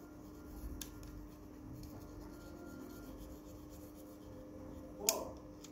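Faint scraping of a hot flat-sided soldering iron bit rubbed along the solder-covered tracks of a TV panel's chip-on-film driver: the heat and friction that strip the tracks. A low steady hum runs underneath, and there is a sharp click about five seconds in.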